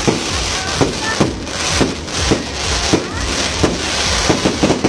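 Fireworks going off: a quick series of sharp bangs, about two a second, over a steady crackling hiss.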